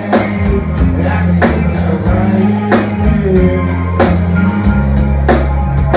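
Live band playing a country-rock song: a steady drum-kit beat with a hit about every two-thirds of a second, bass and electric guitars, and a man singing.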